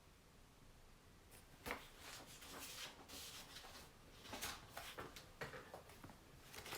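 Faint handling noises: a run of short scratches, rustles and light knocks starting about a second and a half in, like paper or cards being handled or something being written.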